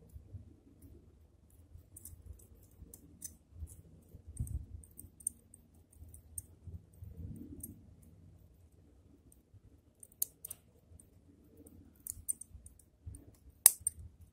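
Small sharp clicks, scattered in little clusters, with soft low handling bumps between them, from hand tools and fingers working on a small zelkova bonsai. One click near the end is louder than the rest.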